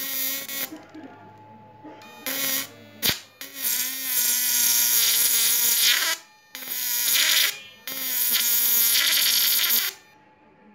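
A homemade 1000 W, 12 V-to-1200 V electric-fishing inverter arcing across its output leads. It makes a loud, harsh electric buzz in about five bursts of one to three seconds, each cutting off suddenly, with a sharp snap a little after three seconds in.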